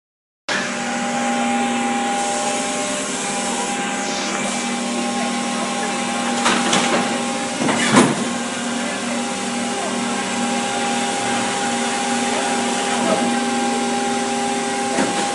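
Steady hum of factory machinery, with a few sharp knocks around six and a half seconds in and the loudest about eight seconds in.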